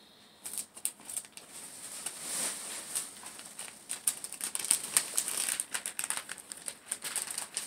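Gift packaging crinkling and rustling as it is handled and opened, in irregular crackles that begin about half a second in and go on throughout.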